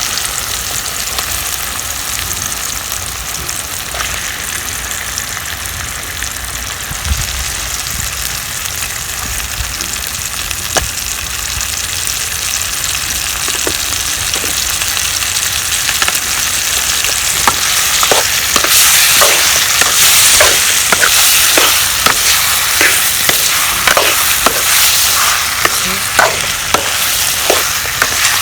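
Country chicken pieces sizzling in hot ghee with onion and tomato in a kadai, a steady frying hiss that grows louder a little past the middle. Repeated scrapes and clinks of a spoon stirring the pan start about halfway through.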